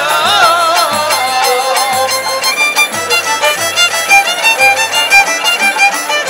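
Moroccan traditional ensemble playing an instrumental passage: violins with wavering melodic lines, then quick repeated short notes, over a darbuka giving deep strokes about once a second.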